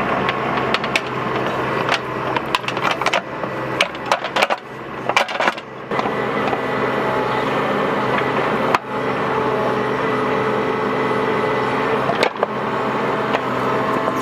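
Bobcat mini excavator's diesel engine running steadily under hydraulic load, with repeated knocks and clunks as it digs a trench.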